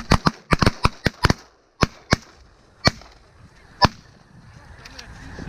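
Several shotguns firing in a volley at snow geese: about nine shots packed into the first second and a half, then four single shots spaced out, the last about four seconds in.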